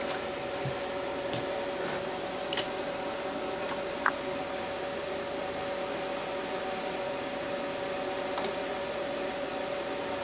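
A steady mechanical hum with a constant mid-pitched tone, and a few faint light clicks in the first seconds.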